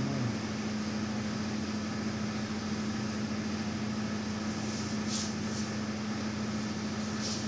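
Steady machine hum with a constant low tone, with a few brief soft hisses in the second half.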